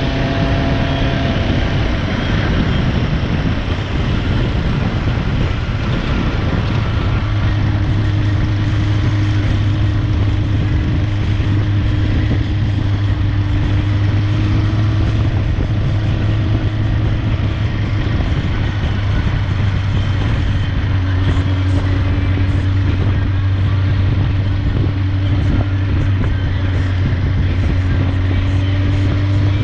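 Motorcycle engine running under way with a steady rushing noise over it. The engine note shifts in the first couple of seconds, then holds at a steady speed.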